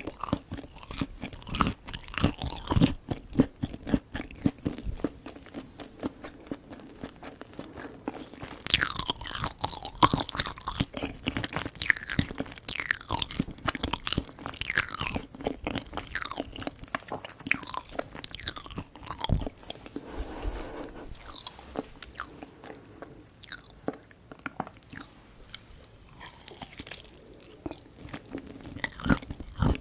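Close-miked chewing with many small crunches and wet, sticky mouth sounds, from eating Korean sweets.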